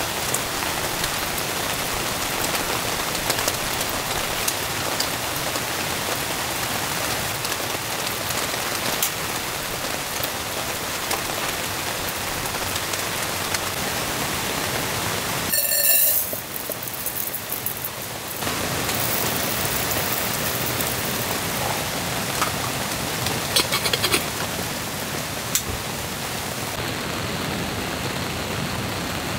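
Heavy rain falling steadily and pattering on the canvas tarp overhead, with scattered louder drips. It drops quieter for a couple of seconds about halfway through.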